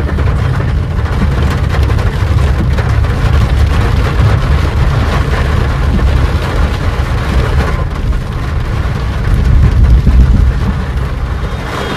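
Car driving on a wet road in heavy rain, heard from inside the cabin: a steady low road rumble with the hiss of tyres on wet tarmac and rain on the windscreen.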